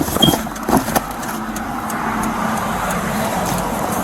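Road traffic running past, a steady and slowly swelling vehicle noise with a low hum, after a few sharp knocks in the first second.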